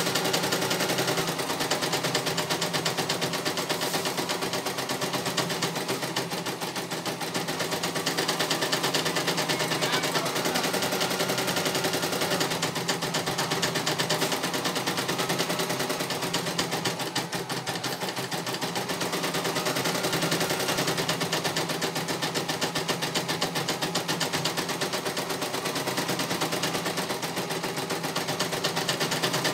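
CNY E900 computerized embroidery machine stitching a design, its needle going in a fast, steady clatter.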